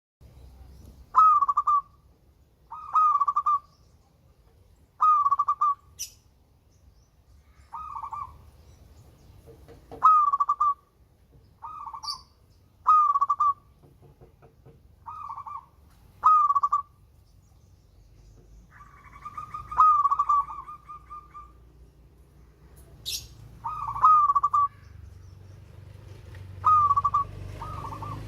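Zebra dove (perkutut) cooing: short, clear calls repeated every one to two seconds, with one longer drawn-out call about twenty seconds in. A faint steady low hum runs underneath.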